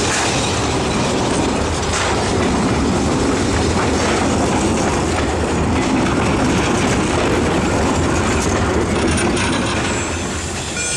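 Narrow-gauge steam train passing close by: the Px29 steam locomotive goes past, then its carriages roll by with wheels clattering on the rails. The sound dips slightly near the end.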